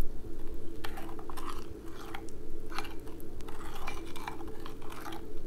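A metal utensil stirring a thick gochujang chili-paste sauce in a ceramic bowl: irregular wet squishing and scraping strokes.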